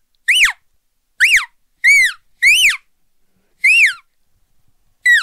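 Imitated elk calf distress calls: about six short, high-pitched mews, each rising then falling, in quick, uneven succession. This is the frantic, injured-calf call meant to bring cows in.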